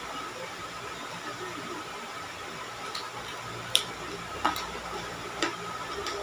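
Eating by hand: three short, sharp crunches or mouth clicks of chewing, about a second apart in the second half, over a steady background hiss.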